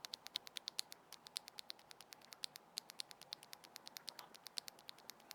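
MechLands Blade75 aluminium, gasket-mounted keyboard with linear MechLands Verdant switches being typed on: a quick, irregular run of many faint key clacks.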